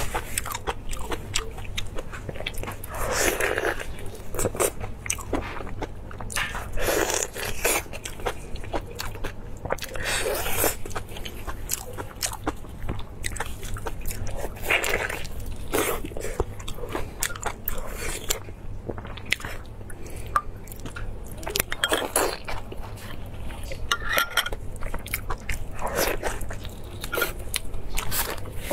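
Close-miked eating: biting and chewing with many quick wet mouth clicks, and louder crunchy bursts every few seconds. A low steady hum lies underneath.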